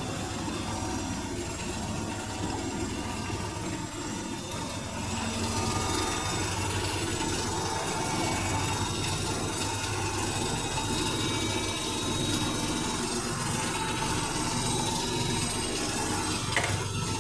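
Electrolux W555H professional washing machine running, a steady low hum with a thin motor whine over it, growing a little louder about five seconds in. A short knock sounds near the end.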